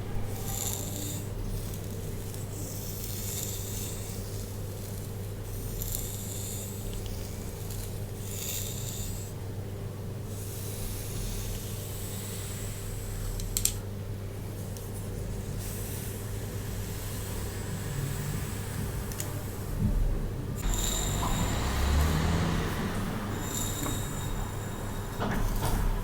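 Hairbrush strokes through hair, heard as soft rasping swishes in several passes that come and go, over a steady low hum. A single sharp click comes about halfway through.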